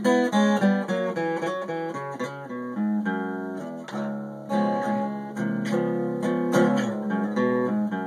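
Acoustic guitar played solo: a run of picked notes and strummed chords, with no singing.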